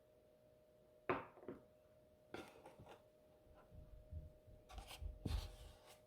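A sharp knock about a second in, then scattered rubbing, scraping and light thumps of things being handled, over a faint steady hum.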